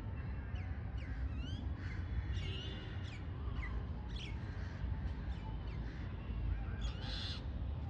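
Several birds calling together in a busy mix of short chirps and quick whistled notes, over a steady low rumble.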